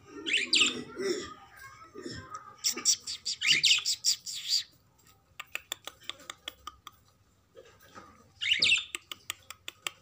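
Budgerigars chirping in quick, wavering high calls in three bursts, with a run of quick sharp clicks in the quieter stretch between the last two.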